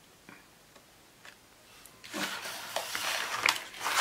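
Paper and card rustling and rubbing as hands handle a greeting card and envelope in a cardboard box. It starts about halfway through, after a few faint taps, and comes in irregular scrapes.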